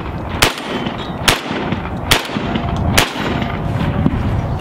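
Rock Island VRBP-100 bullpup 12-gauge semi-automatic shotgun fired four times in quick succession, a shot roughly every second.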